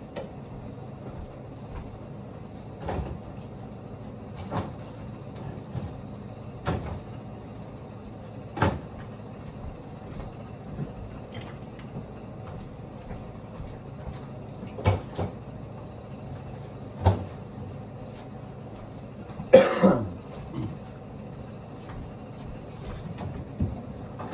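Groceries being loaded into a refrigerator: bottles of Gatorade and a milk jug knocking and clunking onto the shelves, one every second or two, with a louder clatter about twenty seconds in. A steady low hum runs underneath.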